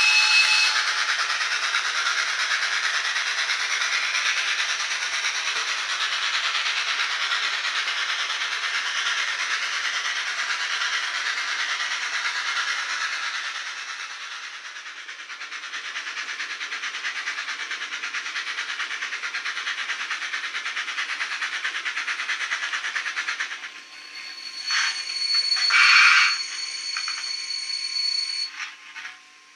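Sound decoder of an N-scale Fleischmann BR 94 model steam locomotive, playing steam exhaust chuffs through its small speaker in a steady, fast rhythm. Near the end the chuffing stops and a few short hiss bursts follow, with a steady high tone.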